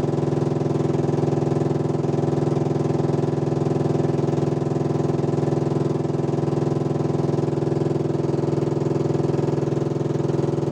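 Engine running steadily at an even speed, its pitch unchanging throughout.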